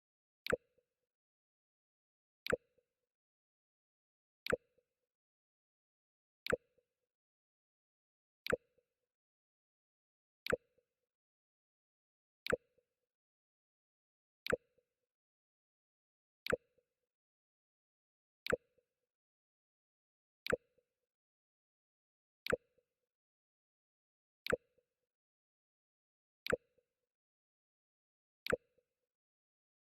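The Mac OS X 'Jump' sound effect played again and again: a short sharp click with a brief low tone, repeating evenly every two seconds with silence between.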